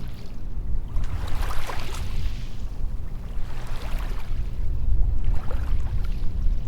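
Small waves washing up and back on a sandy beach, the hiss of each wash swelling and fading three times, over a steady low rumble.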